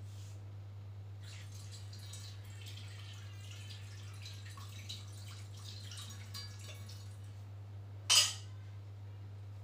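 Water running from a dispenser tap into a glass for several seconds, then one sharp clink of dishware about eight seconds in. A steady low hum sits under it all.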